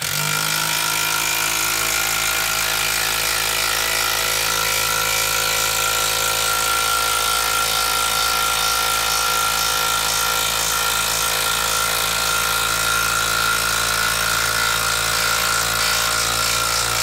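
Makita DT03 12-volt brushed impact driver hammering steadily as it drives a long screw down through a pressure-treated 6x6 beam, its pitch level throughout.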